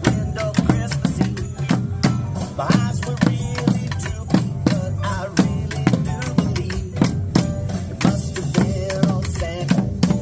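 Music with a steady drum beat and a melody over it.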